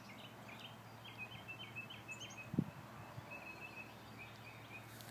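Small songbirds chirping faintly and repeatedly in short high notes, with one brief low thump about halfway through.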